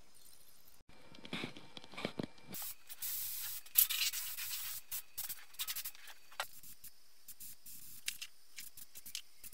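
A few knocks of handling, then a gravity-feed paint spray gun hissing as it sprays base coat. The hiss is steady for about two seconds, from about two and a half seconds in, then comes in short spurts.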